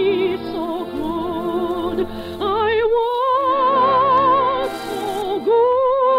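Operatic soprano holding long notes with wide vibrato over an orchestra, without words, with a long held high note in the middle and another near the end.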